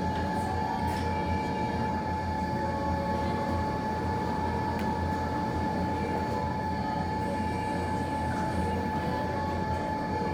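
A steady mechanical hum: a low drone under a thin, steady whine, with a few faint ticks.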